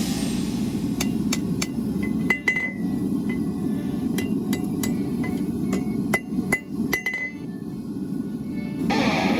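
Blacksmith's hammer striking rebar on an anvil: a run of irregular metallic blows, roughly two or three a second, each with a short bright ring, stopping about two seconds before the end, over a steady low noise.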